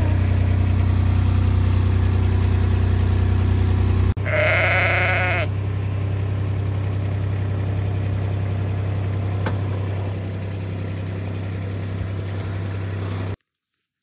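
A vehicle engine idling steadily, with a sheep bleating once loudly about four seconds in. The engine sound stops abruptly near the end.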